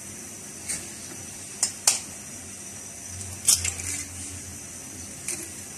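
An egg being cracked with a spoon into a small glass bowl: a few sharp taps and clicks of shell, the loudest a quick cluster about three and a half seconds in.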